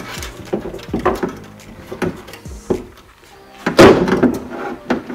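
Irregular knocks and rattles of metal and plastic parts handled inside a Fiat Punto car door as the window regulator mechanism and glass are worked loose, with the loudest clatter about four seconds in.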